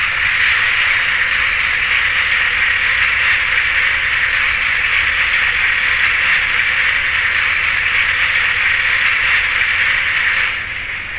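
Steady hiss of escaping steam from a model steam locomotive's sound decoder, starting abruptly and fading out about ten and a half seconds in.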